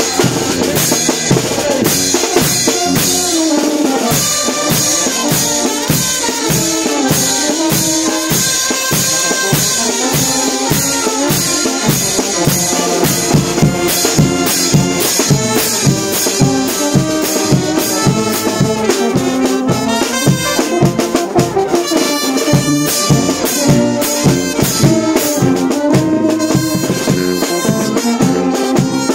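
A brass band playing live: trumpets, trombones, sousaphone, saxophones and clarinet, with drums keeping a steady beat.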